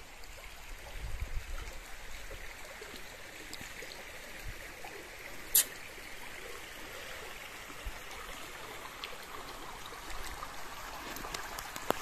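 A forest stream trickling steadily over stones. A single sharp click about halfway through.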